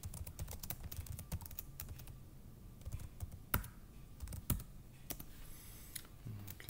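Typing on a computer keyboard: a run of quick key clicks, with two louder keystrokes about three and a half and four and a half seconds in.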